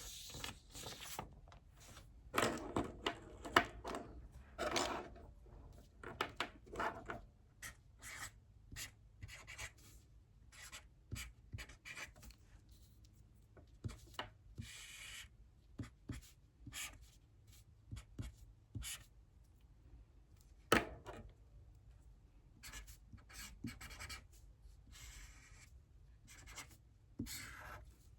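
Handwriting: irregular short scratching strokes of a writing tool in quick runs with brief pauses, busiest in the first few seconds, with one sharper tap about 21 seconds in.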